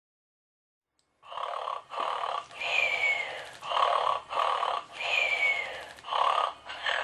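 Gund Droopy plush toy dog playing its snoring sound. Starting about a second in, it repeats a cycle of two snores followed by a falling whistle, roughly every two and a half seconds.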